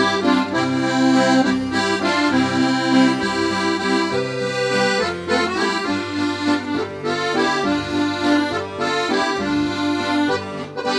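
Instrumental passage of a havanera-style waltz led by accordion, with sustained chords and a bass line moving underneath.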